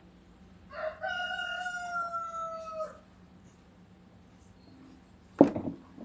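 A rooster crows once: a single call of about two seconds, falling slightly in pitch. A sharp knock follows near the end.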